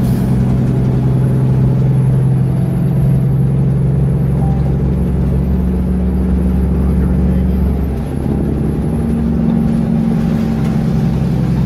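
A road vehicle's engine and tyre noise heard from inside the cab: a steady low drone whose pitch shifts about eight seconds in.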